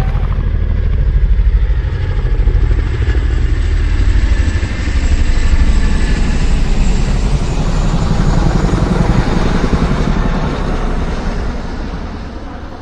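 A motor vehicle's engine running loudly with a rapid low pulsing, fading away over the last couple of seconds.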